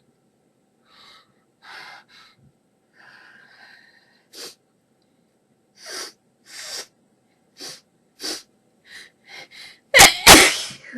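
A person's series of short, quiet gasping breaths and sniffs during a sneezing fit, then two loud sneezes in quick succession near the end.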